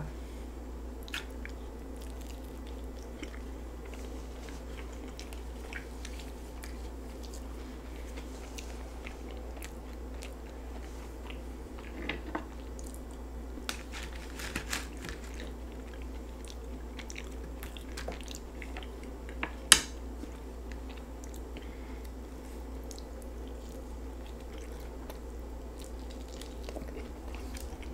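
Close-miked chewing and biting of a chicken quesadilla and tortilla chips: soft wet mouth sounds with scattered crunches and a few sharper clicks, over a steady low hum.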